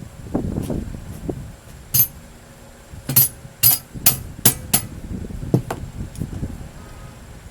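A run of sharp metallic knocks, about seven in all, coming irregularly and most closely grouped in the middle: metal being struck or knocked against metal, with a brief ring after each hit.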